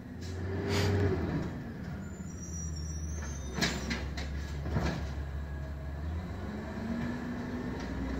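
Recycling garbage truck at work: its engine runs steadily and revs up about a second in and again near the end, with a rising tone as the hydraulics work. Two sharp bangs, about 3.5 and 5 seconds in, come as a cart is emptied and set back down.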